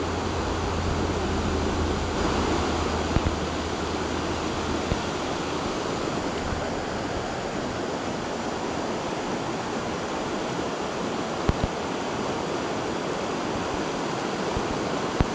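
Steady rushing of a fast, rocky river tumbling through riffles and pocket-water rapids, with a few brief low bumps.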